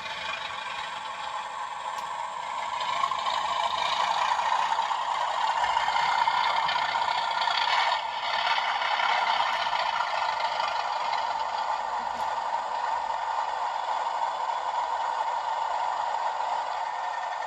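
Simulated Class 37 diesel engine sound from a Hornby TTS sound decoder, played through a tiny speaker in a model locomotive, so it is thin with no bass. It grows louder about three seconds in.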